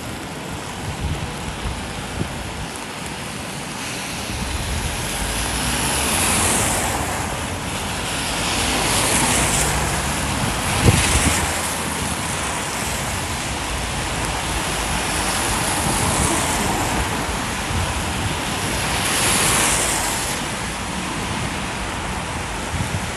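Steady rain and wind on the microphone, with several swells of hiss that rise and fade over two or three seconds each, and a single thump about eleven seconds in.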